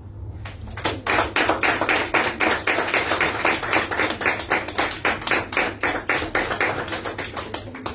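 A small group of people applauding, with quick, dense hand claps that start about half a second in and stop near the end.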